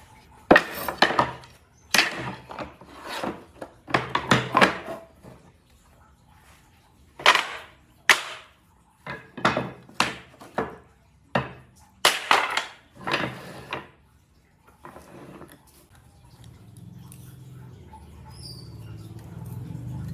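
Wood being worked by hand: a run of loud, irregular strokes against the wood, each lasting up to about a second. After them, in the last few seconds, comes a low steady hum.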